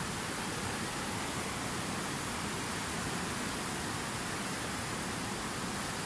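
Fast mountain river rushing in whitewater rapids over boulders: a steady, unbroken rush of water.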